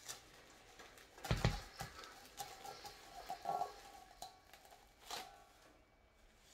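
Plastic wrap rustling and crinkling as it is peeled off a stainless steel bowl of dough, with a dull knock about a second in and a few light clicks and scrapes from hands on the bowl and dough.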